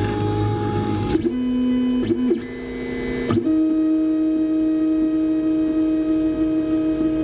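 Printrbot Metal Simple 3D printer's stepper motors whining as the head and bed move through the start-up setup routine. The whine holds a steady pitch, then jumps to a new one with each change of move, several times in the first few seconds, before settling on one long steady tone.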